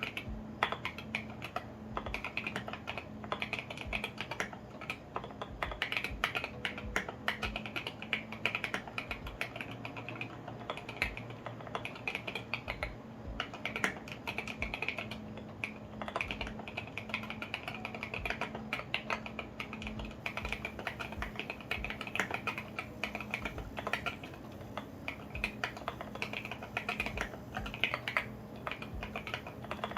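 Continuous fast typing on a KBDfans Tofu65 acrylic-case custom mechanical keyboard with lubed and filmed Alpaca V2 linear switches and SA-profile ABS keycaps, the keystrokes clacking in a dense, uneven stream.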